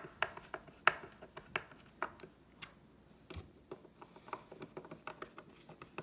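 Hand screwdriver tightening the screws of a soft-close hinge: a run of irregular sharp clicks and ticks, a few a second.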